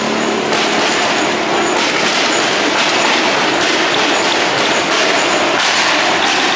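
Loud, rasping sports-car exhaust with the engine held at high revs, a dense steady roar that steps up about half a second in and shifts again near the end.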